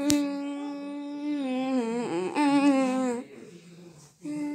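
A person's voice humming or singing long held notes: one steady note for nearly two seconds, a dip and slide in pitch, a second held note, a short pause, then a third note starting near the end.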